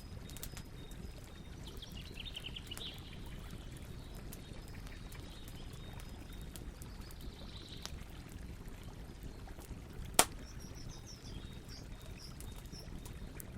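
Campfire crackling with small scattered pops over a steady low rush, and one sharp loud pop about ten seconds in. Birds chirp in short runs in the background.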